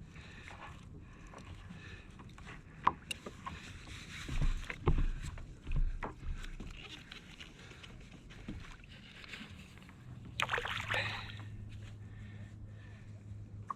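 Knocks and thumps of gear being handled on a fishing kayak at sea, with water sloshing against the hull; a sharp click about three seconds in, a run of low thumps a second or two later, and a steady low hum joining near the end.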